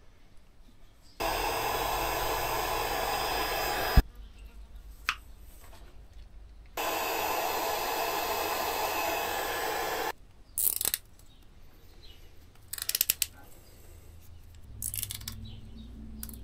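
Handheld heat gun blowing on the crimped motor-wire joints of a hub motor, running in two steady bursts of about three seconds each. The first burst ends with a sharp click. Light clicks and rustling of the wires being handled follow.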